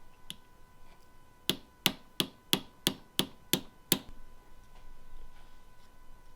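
Hammer blows in a quick, even series: eight sharp strikes at about three a second, during work on a manual transmission's selector rod joint bushing.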